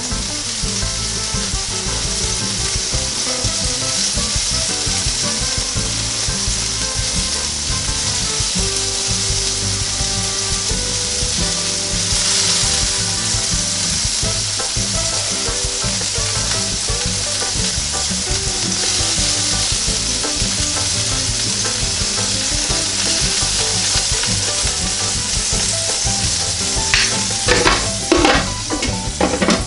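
Pancakes and sausages sizzling steadily on a NuWave Medley XL electric skillet, with a few louder clatters near the end.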